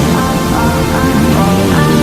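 Loud electronic background music.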